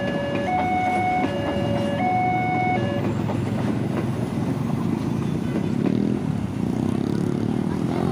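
Level-crossing warning alarm sounding a two-tone chime that alternates about every three-quarters of a second and stops about three seconds in. Underneath it runs the steady rumble and clatter of a passenger train's carriages passing over the rails. Near the end, motorbike engines rev as traffic moves off.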